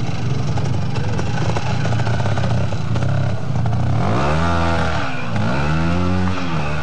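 Trials motorcycle engine running at low revs, then revved up and back down twice in the last few seconds.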